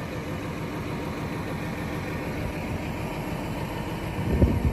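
Cummins ISM 350 inline-six diesel in a concrete mixer truck idling steadily, with one short low thump near the end.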